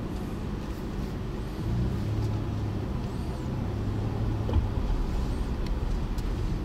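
Car engine running with road noise, heard from inside the cabin as the car pulls off the road to stop. A low engine hum comes up a little less than two seconds in and holds steady.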